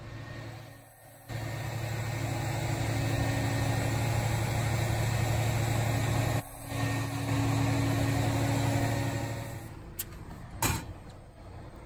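Diesel engine of a boom crane truck running steadily while the crane hoists a crate, starting abruptly about a second in and breaking off briefly partway through. A sharp click comes near the end.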